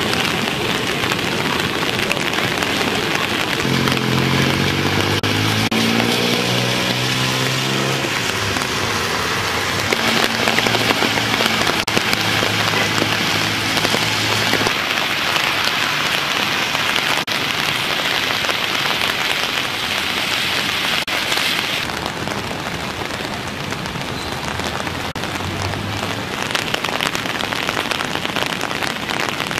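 Heavy rain falling steadily, a dense hiss that eases a little about two-thirds of the way through. Under it, a low hum that steps in pitch sounds from about four to fourteen seconds in.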